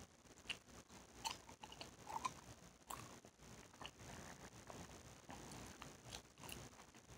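Bubble gum being chewed close to the microphone: faint, irregular wet smacks and sharp clicks of the mouth, a few louder snaps among them.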